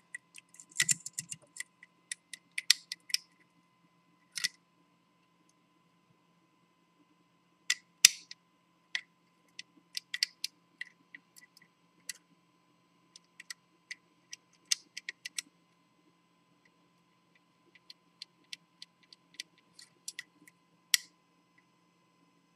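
Picking tools working inside an ERA Viscount five-lever deadlock: a curtain pick and lever wire clicking and scraping against the levers in scattered, irregular ticks, with a couple of pauses of two to three seconds. A faint steady hum runs underneath.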